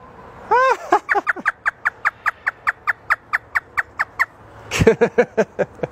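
African grey parrot imitating a hysterical laugh: a few swooping notes, then a fast run of short cackling notes at about six a second for some three seconds, ending in a few lower, voice-like laughing notes.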